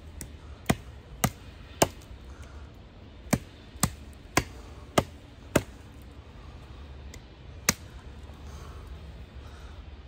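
Nedfoss Big Dog, a large fixed-blade camp knife, chopping into a thin branch: about nine sharp chopping strikes, roughly half a second apart. They come as three, then a pause, then five, then a single strike near the end.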